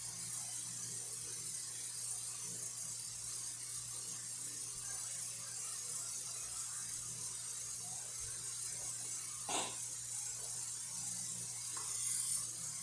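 Hot water running steadily from a tap into a plastic mop bucket as it fills, with one short knock about three-quarters of the way through.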